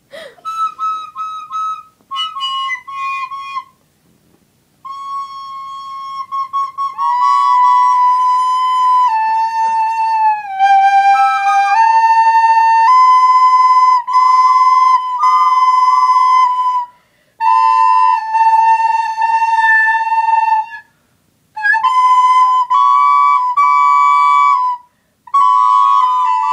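Plastic soprano recorder playing a slow series of held notes that step up and down in pitch, with a few short breaks between phrases; the first few seconds are short, quieter notes.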